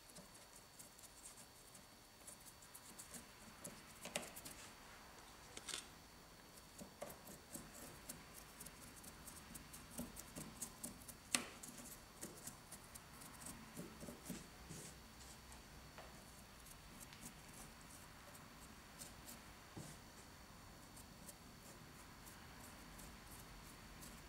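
Faint, irregular scratching and ticking of a paintbrush dabbing and dragging over a model rock face, with one sharper click about eleven seconds in. A faint steady high whine runs underneath.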